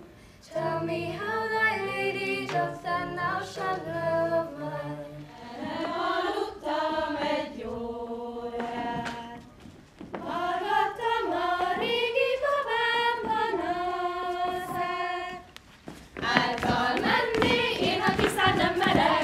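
Unaccompanied group singing by young voices, with sustained sung notes and no instruments; the singing breaks off briefly a few times. About sixteen seconds in, a louder, fuller round of group folk singing begins.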